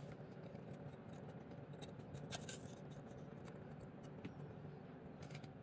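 Faint clicks and light scraping of metal parts as a 110cc engine's cylinder barrel is eased down over the piston and its rings, over a low room hum.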